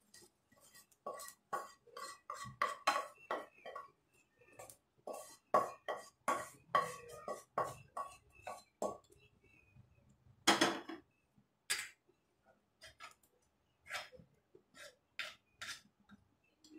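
A spoon scraping and knocking against a kadai while fried grated carrot is scraped out of it into a pot of milk: quick runs of scrapes and clinks over the first half, then sparser knocks, two of them louder a little past the middle.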